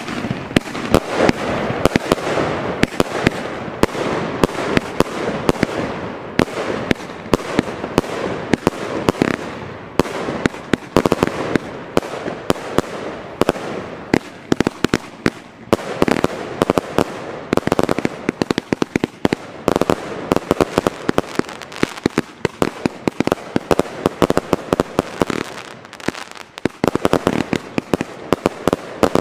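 A firework cake (battery) firing shot after shot without pause: a dense, continuous run of sharp bangs from shells bursting overhead, with crackle in between.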